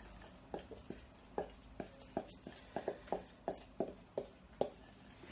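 A dozen or so soft, irregular taps, roughly three a second, as a plastic bag of ground mbika (pumpkin seed) powder is shaken and tapped empty over a metal saucepan.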